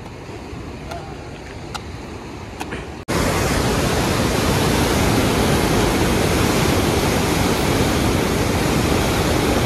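Rushing water from a dam's single open sluice gate, churning into white foam. About three seconds in it starts suddenly and runs as a loud, steady roar. Before that there is a quieter wash of the river with a few faint ticks.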